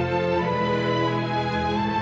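Background music of slow, held chords, shifting to a new chord near the end.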